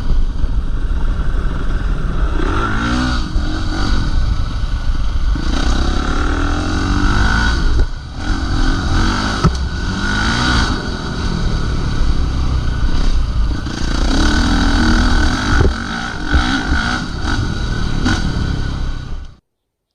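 Dirt bike engine running under way, its pitch rising and falling repeatedly as the throttle opens and closes. The sound cuts off abruptly near the end.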